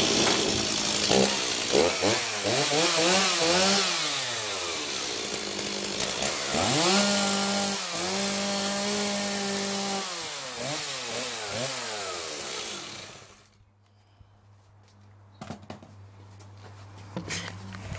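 Stihl MS 260 two-stroke chainsaw starting straight away, then revved up and down in quick blips, held at high revs for about three seconds, revved again and switched off about thirteen seconds in. A few light knocks follow after it stops.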